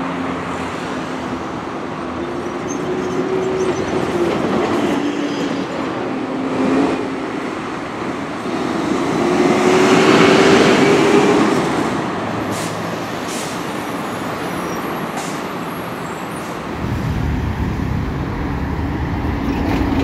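A large vehicle passing by, loudest about halfway through, over a steady background of engine and traffic noise. A deeper rumble comes in near the end.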